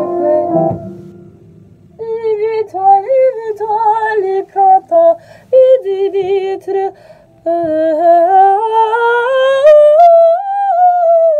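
A piano chord fades out in the first second, then a woman sings a melody unaccompanied, with vibrato, ending in a long slow rising slide that peaks about ten seconds in and then falls.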